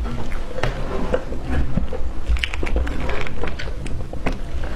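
Close-miked mouth sounds of someone chewing cream-covered sponge cake: wet smacks and quick irregular clicks. Soft squishing comes from cream and sponge as a chunk of the cake is pulled off.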